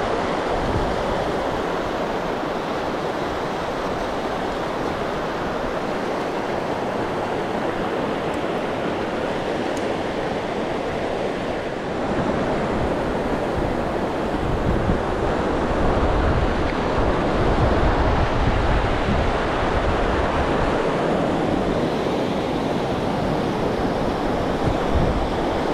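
Outdoor wind buffeting the microphone in irregular deep gusts over a steady rushing hiss. It grows louder about halfway through.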